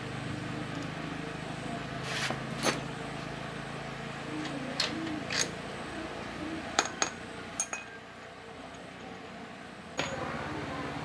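Hand tools clinking and tapping against motorcycle metal parts, several scattered knocks over a steady low hum.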